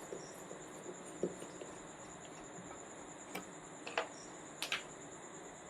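A handful of faint, sharp clicks and taps from a screwdriver and screws being worked out of a home theater amplifier's casing, over a faint steady high-pitched whine.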